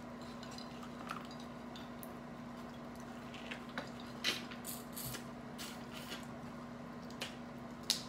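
Close mouth and hand eating sounds of a seafood boil: crustacean shells cracking and being pulled apart, with sucking, chewing and small wet clicks, scattered and growing busier about halfway through. A steady low hum runs underneath.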